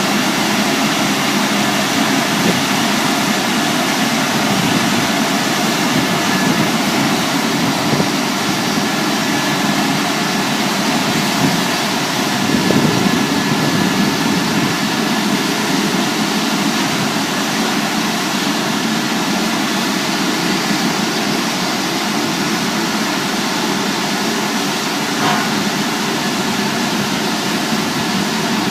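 Automatic five-brush car wash machine running, a loud steady mechanical noise.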